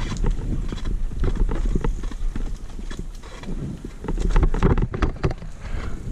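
Mountain bike rattling and clattering over a rough trail: quick, irregular clicks and knocks, with a low rumble underneath.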